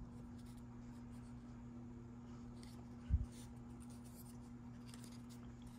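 Faint rubbing and light scratching of fingers handling a small 3D-printed resin model car body, over a steady low hum, with one low thump about three seconds in.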